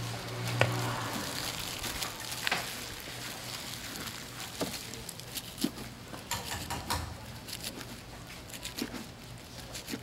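Gimbap roll being sliced with a chef's knife on a plastic cutting board: a few scattered taps of the blade against the board. Behind them is a steady hiss of background noise, with a low hum in the first second.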